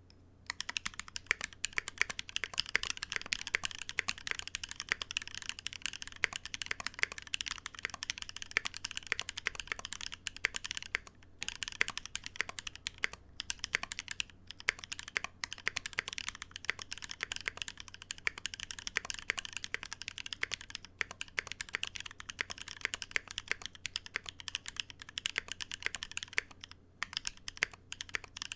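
Continuous fast typing on a custom 60% gasket-mounted mechanical keyboard with a brass plate and Holy Panda tactile switches lubed with Tribosys 3204: many keystrokes a second, broken by brief pauses around 11 and 27 seconds in.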